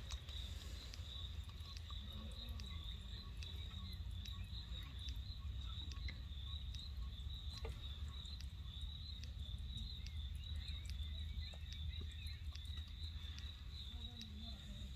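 Insects, crickets or similar, chirping in a steady high trill that pulses evenly a few times a second, with faint scattered clicks.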